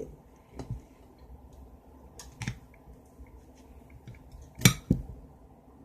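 A few sharp clicks and taps as pieces of cut honeydew melon are handled against a plate, the loudest a double tap about three-quarters of the way through. A faint low hum runs beneath.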